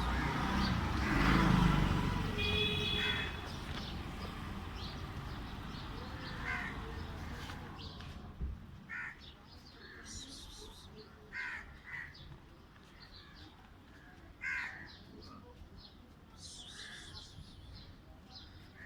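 Birds calling at intervals, short harsh calls of the kind crows make, after a louder rumbling noise in the first few seconds.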